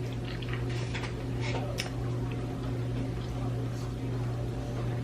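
Steady low hum with a few faint clicks and wet eating noises as shrimp are peeled and eaten.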